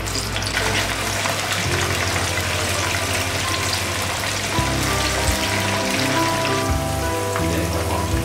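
Sliced arrowhead corms deep-frying in hot oil in a wok, giving a dense crackling sizzle that thickens about half a second in, with background music over it.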